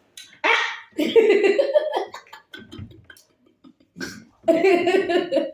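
A boy making loud, deliberate throaty vocal noises, like exaggerated burps, in three bursts: about half a second in, again around one to two seconds, and once more around four to five seconds.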